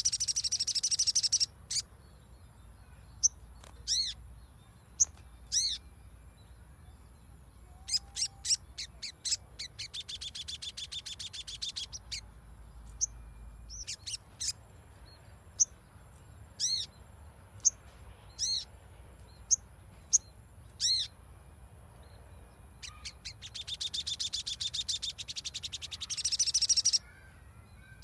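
Little spiderhunter calling: long, fast trills of high, rapidly repeated notes near the start, in the middle and near the end, with single sharp high chips between them.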